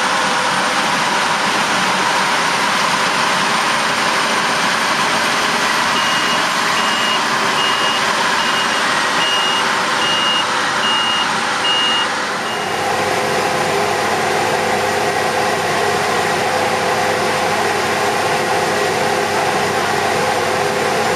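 Claas Lexion 750 combine harvester, with its Caterpillar C13 six-cylinder diesel, running steadily. A reversing alarm beeps about once every 0.7 seconds from about six seconds in until just past the middle. As the beeping stops, the machine's tone shifts.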